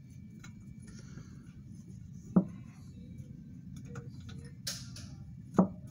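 Handling noise from the aluminium cylinder head: two sharp knocks about three seconds apart and a few faint clicks, over a low steady hum.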